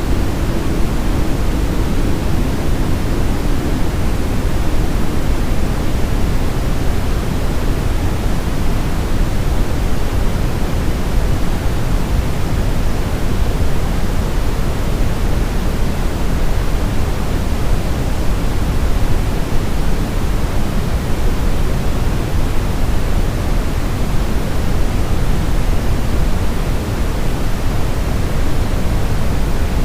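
Steady brown noise: an even, deep hiss with most of its weight in the low end. A faint low tone under it fades out in the first few seconds.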